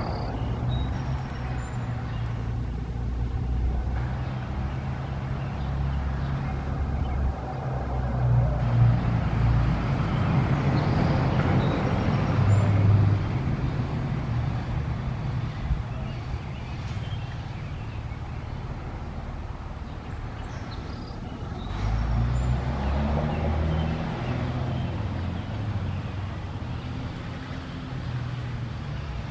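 A motor vehicle's engine running steadily with road noise, growing louder towards the middle and swelling again later on.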